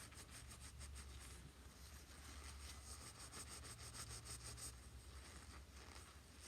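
Soft cloth buffing metal polish on a small metal tractor foot pedal, heard faintly as quick back-and-forth rubbing strokes in two runs with a short break about a second and a half in.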